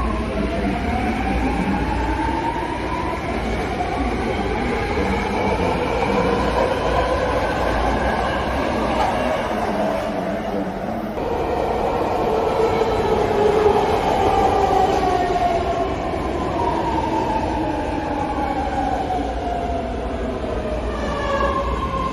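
Legacy BART subway train with a whining drive and rumbling wheels on the rails; the whine rises in pitch as the train pulls away. About halfway, a second legacy BART train arrives, and its whine falls in pitch as it slows along the platform.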